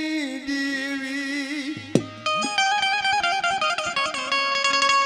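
Instrumental melody on a string-like instrument: held, wavering notes at first, then a quicker run of stepped notes, with a single thump about two seconds in.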